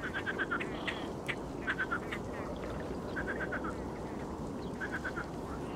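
Great crested grebes calling: quick runs of four or five short, sharp notes, repeated several times, over steady low background noise.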